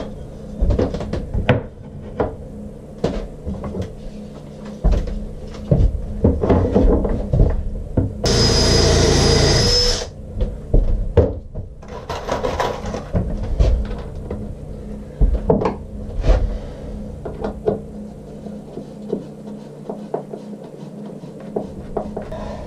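Knocks and clatter of wooden frame pieces, clamps and hand tools being handled and set down on a workbench, with one steady run of a small power tool lasting about two seconds, about eight seconds in.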